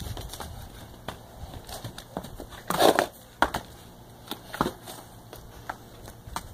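Horse's hooves thudding and scuffing on a dirt corral floor as the horse moves about and rears, in scattered irregular knocks, with a louder rustling burst about three seconds in.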